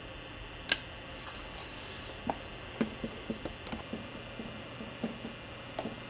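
A sharp click about a second in, then a run of light, irregular knocks, two or three a second, over a steady hiss.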